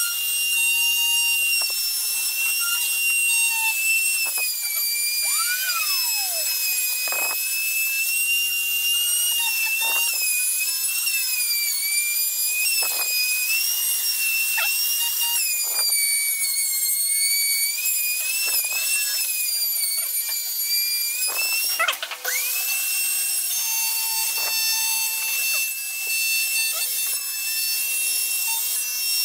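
Compact trim router running with a high whine while its bit cuts a slot in wood, the pitch sagging briefly every few seconds as it takes the load. About three-quarters of the way in the pitch drops sharply and climbs straight back up.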